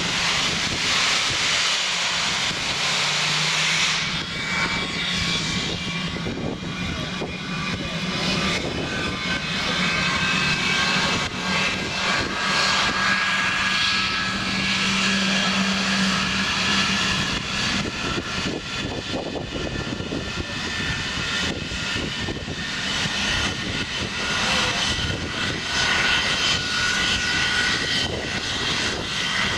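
English Electric Lightning's Rolls-Royce Avon turbojets running up after a scramble start: a loud jet rush with several whining tones that slowly rise in pitch, climbing more steeply near the end, and a low hum that dies away about halfway through.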